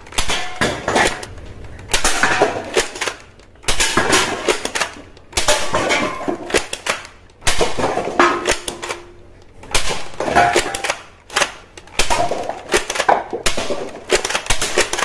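Rapid clattering in repeated bursts, each about a second long, coming roughly every two seconds.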